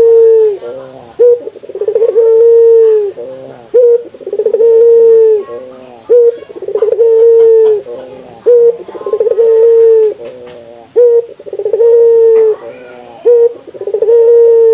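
Puter (Barbary dove) cooing over and over. Each call is a few short notes followed by one long held coo, and the calls come about every two seconds.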